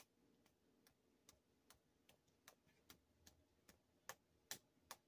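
Faint, regular finger taps, about two or three a second and a little louder near the end. They imitate a finger hitting a phone screen, heard over a connected call.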